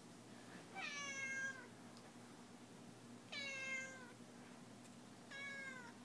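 Domestic cat meowing three times, about two seconds apart, each meow lasting well under a second and sliding down in pitch at its end.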